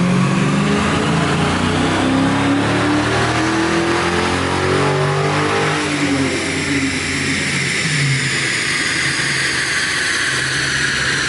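V8 car doing a full-throttle pull on a chassis dyno: the engine note climbs steadily for about six seconds, then the throttle closes and the revs fall as it coasts down, a high whine climbing meanwhile.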